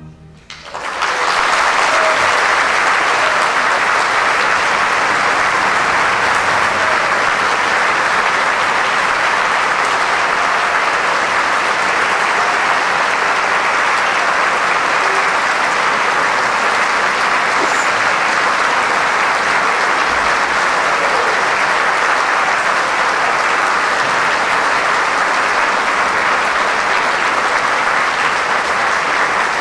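Large concert-hall audience applauding, a standing ovation. The applause swells in within the first second, right after the last horn-and-orchestra note dies away, then holds steady and dense.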